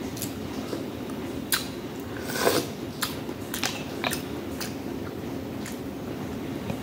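Close-up eating sounds: a person handling and eating mussels, with scattered sharp clicks of shell and wet mouth smacks. The loudest and longest of them comes about two and a half seconds in.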